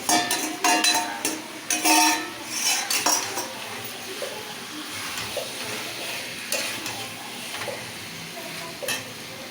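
Spatula scraping and clanking against a kadai as fried potatoes are stirred into chicken frying in spice masala (the kosha stage), over a steady sizzle. The knocks come thick in the first few seconds, then only now and then.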